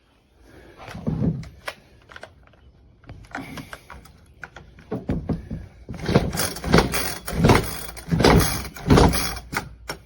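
Pull-starter cord of a NEO-TEC 25.4cc two-stroke top-handle chainsaw yanked repeatedly without the engine catching: a couple of pulls early, then about five hard pulls in quick succession in the second half. The pulls drag hard because the clutch is stuck engaged, so each pull also turns the chain.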